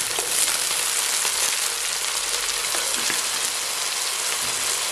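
Water poured into hot oil and browned sliced onions in a kadai, setting off a steady, loud sizzle.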